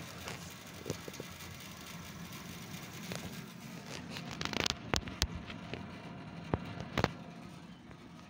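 Gas burner of an Ariston LPG water heater running with a steady low rush. A few sharp clicks and rustles from handling sound over it, the loudest about five and seven seconds in.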